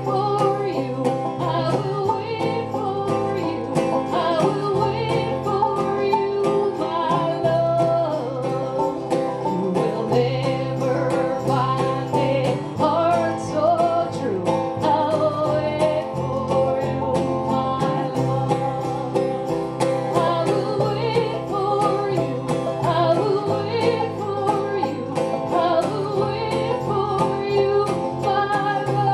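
Live bluegrass band playing: banjo, acoustic guitar, upright bass and a light drum kit, with a steady beat and bass notes changing every second or two.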